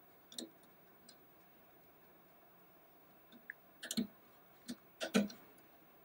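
Faint, scattered clicks and taps of fingers working the retaining clips of a NAS's laptop-style (SO-DIMM) RAM slot to release the memory module. There is a single click near the start, then small clusters of clicks about four and five seconds in.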